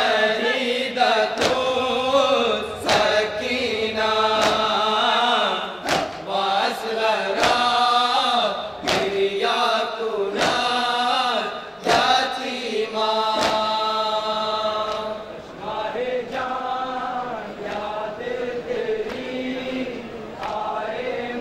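A group of men chanting an Urdu noha lament in chorus, unaccompanied, with sharp chest-beating (matam) slaps about every second through the first half, thinning out after about twelve seconds.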